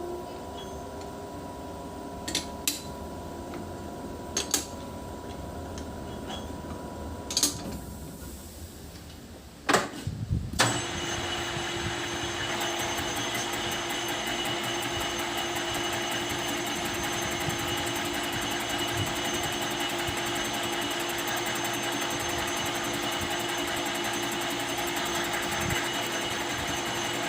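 Metalworking lathe in a workshop: a few sharp metallic knocks over a low hum. About eleven seconds in, the machine starts and runs steadily with a constant whine.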